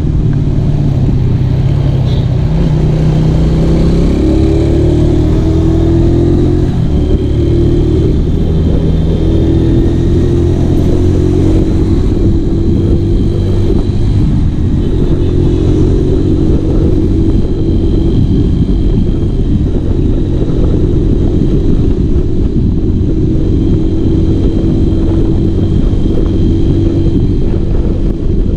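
Modified stroke-up Honda Tiger motorcycle engine pulling hard under acceleration, its note climbing and dropping as it runs through the gears.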